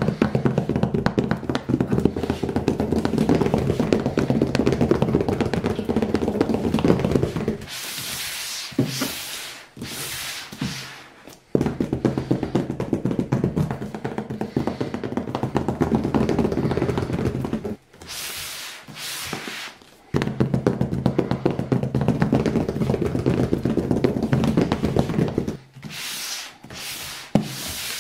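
Fingertips tapping quickly and continuously on a cardboard box in three long runs of several seconds each. Shorter bursts of scratching and rustling fall between the runs as the box is handled and turned.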